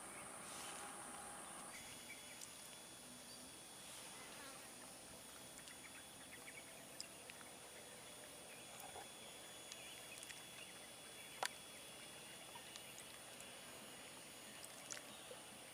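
Faint steady high-pitched insect buzz, with a few small clicks, one a little louder about eleven seconds in.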